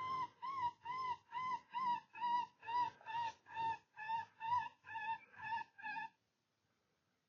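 Electronic predator call playing a looped whimpering distress cry, short identical yelps repeating evenly about twice a second. It cuts off suddenly about six seconds in.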